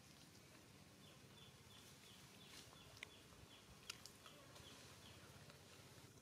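Near silence: faint outdoor ambience with a faint, even series of short falling chirps, about three a second, from about a second in until near the end, and a few soft clicks.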